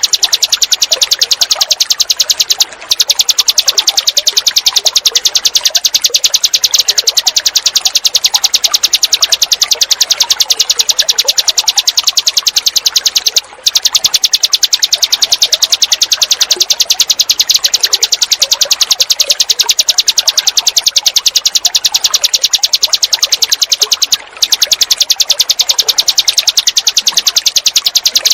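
Small songbirds giving a fast, unbroken run of high chirping 'tembakan' calls, layered over the sound of clear running water. It breaks off for a split second three times, about every eleven seconds.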